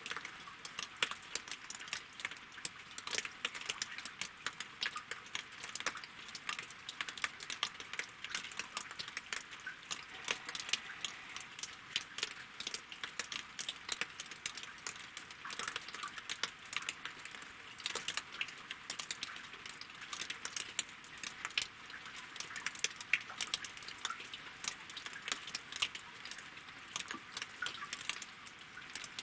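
Steady rain, a dense run of sharp drop ticks striking lake water and wooden logs.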